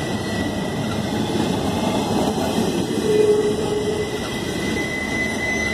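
Norfolk Southern double-stack intermodal freight train rolling past: a steady rumble of wheels on the rails, with a brief squeal about three seconds in.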